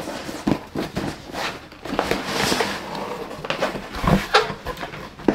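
Cardboard shipping box being handled and opened by hand: flaps rustling and scraping, with several sharp knocks and clicks.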